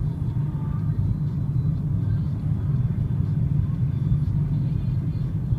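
Steady low rumble of a car driving at road speed, engine and tyre noise heard from inside the cabin.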